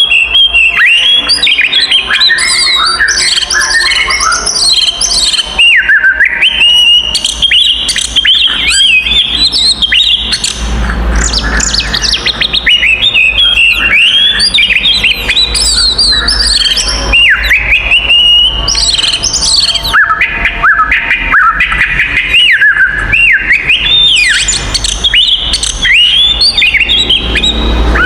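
Oriental magpie-robin (kacer) singing loudly and without pause: a rapid run of varied whistled notes and quick rising and falling glides. This is the bird's aggressive territorial 'fighting' song, used to provoke other magpie-robins.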